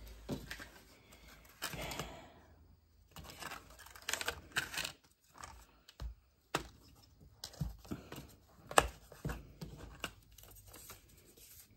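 Paper rustling and scattered light clicks and taps as a cut paper print is handled and fitted into a picture frame, with one sharper click about three-quarters of the way through.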